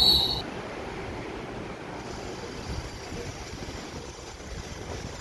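Steady low rumble of wind and background noise at an open-air elevated platform, with a brief high-pitched tone at the very start.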